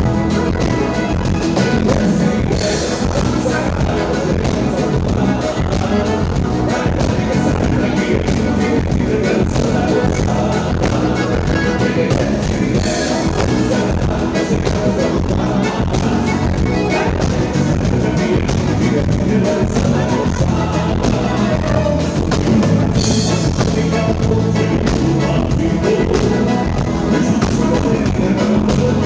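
A band playing music with a steady beat, with a singing voice.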